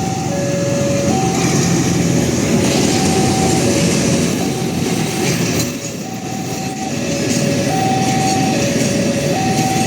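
Railway level-crossing warning siren sounding an electronic two-tone alarm, a higher and a lower note taking turns about every half second. A train runs over the crossing at the same time, its steady rumble and wheel noise under the alarm.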